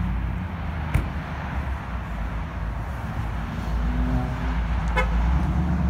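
Outdoor road-traffic noise with a low, fluctuating wind rumble on the phone microphone, and a short faint horn-like tone about four seconds in.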